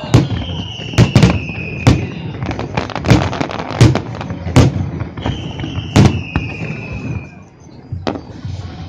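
Aerial fireworks shells bursting in an irregular rapid series of sharp bangs, about a dozen in all. Twice a long high whistle sounds over them, each falling slightly in pitch over about two seconds.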